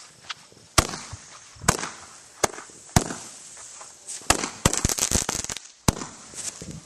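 Firecrackers going off: sharp, irregular bangs, single ones spaced about a second apart, then a rapid cluster of bangs about four seconds in.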